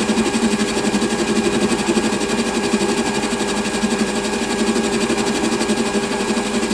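Small metal-turning lathe running, its tool taking an intermittent cut on an off-centre eccentric boss that has not yet cleaned up round. A steady machine hum with a fast, even pulsing.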